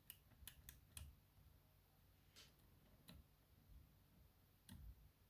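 Faint, sparse clicks of a curved flag dimple pick working inside the keyway of an ISEO R6 Plus dimple lock held under tension: a cluster of ticks in the first second, then single clicks every second or so.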